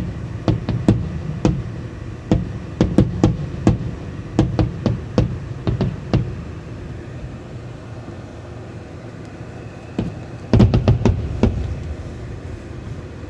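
Fireworks going off in a rapid series of sharp bangs and pops for the first six seconds. After a lull of a few seconds, a dense cluster of cracks starts about ten and a half seconds in.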